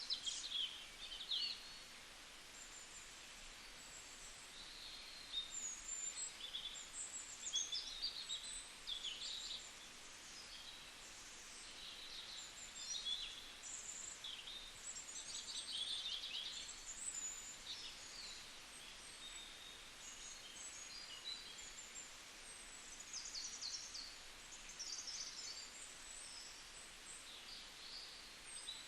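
Several songbirds chirping and trilling, with many short, high calls overlapping throughout, over a faint steady hiss of background noise.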